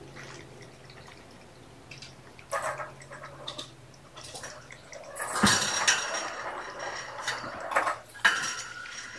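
Irregular light clicks and clattering of small hard objects, with one sharp knock about five and a half seconds in.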